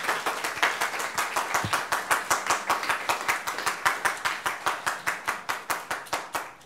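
Guests clapping: quick, even hand claps at about six a second over the lighter clapping of a small crowd. The claps stop suddenly near the end.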